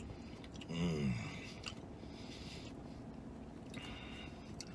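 A man chewing a mouthful of pretzel-bun burger, with a short hum about a second in and a brief hiss near the end.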